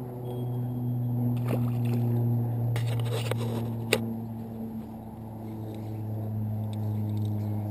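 A small boat's electric trolling motor humming steadily. A few knocks and rattles and a sharp click come about halfway through.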